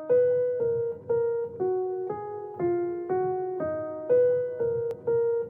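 Background music: a keyboard melody of struck notes, about two a second, over a low bass line.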